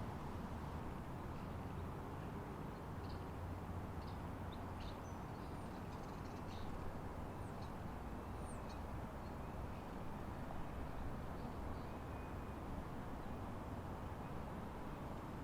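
Faint bird chirps and calls scattered over a steady low outdoor rumble, the chirps thinning out after about twelve seconds.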